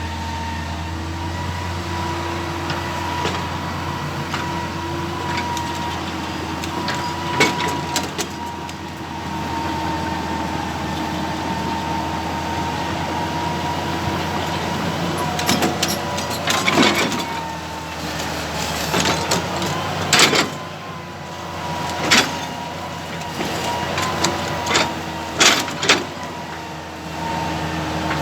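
Hydraulic excavator running steadily, its engine humming low under a steady whine, with scattered sharp knocks and clanks, several close together in the second half.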